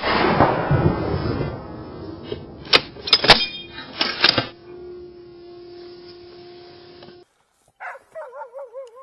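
The echo of a rifle shot fired a moment before dies away over about two seconds, followed by a few sharp clicks. Near the end, dogs yelp and whine with wavering pitch.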